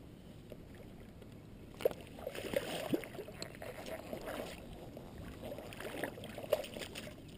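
Water splashing and sloshing in irregular bursts, starting about two seconds in: a gar shot with a bowfishing arrow thrashing at the surface on the line as it is pulled in.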